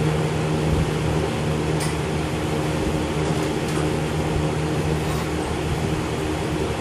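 Steady mechanical hum with a low drone, and a few faint clicks about two seconds and five seconds in.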